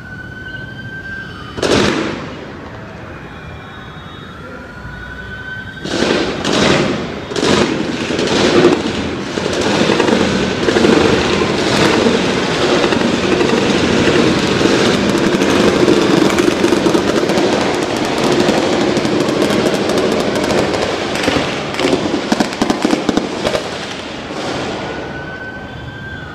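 Gunfire in a street gunfight: a single shot about two seconds in, a few more shots around six seconds, then a rapid, continuous barrage of shots for about fifteen seconds that thins out into scattered shots near the end. A faint rising tone recurs a few times under it.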